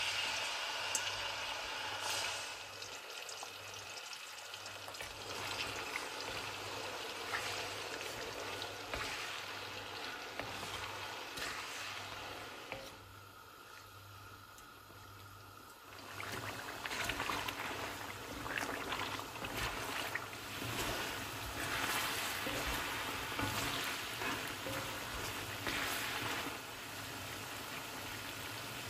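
Chicken pieces sizzling and crackling as they fry in deep hot oil in a cast-iron karahi on high heat. The sizzle dips for a few seconds about halfway through, then comes back louder with dense popping.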